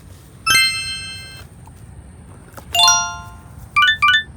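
Chime sound effects: a bright ding about half a second in that rings out for about a second, a lower ding near three seconds, then a quick run of four short notes near the end.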